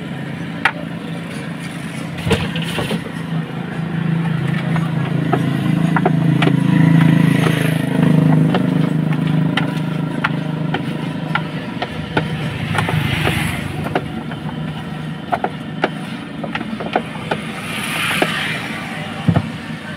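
Metal spoon clicking and scraping against a plastic basin as raw potato finger chips are stirred in thick batter. A vehicle engine hums steadily underneath, loudest around the middle.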